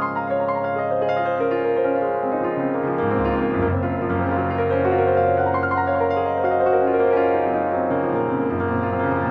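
Background piano music, notes sustained over a moving bass line.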